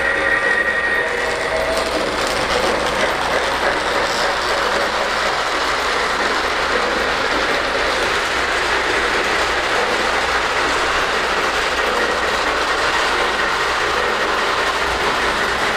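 Lionel O-gauge toy steam locomotive and its cars running along three-rail track: a steady, even running noise of wheels on the rails and the engine's motor.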